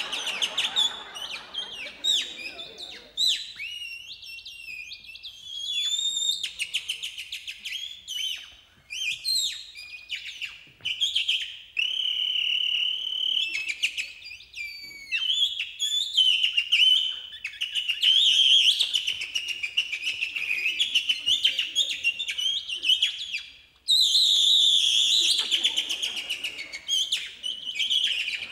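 Bird imitation whistled with the mouth: a fast run of high chirps, trills and warbling pitch glides, with short breaks between phrases and a brief stop about three-quarters of the way through.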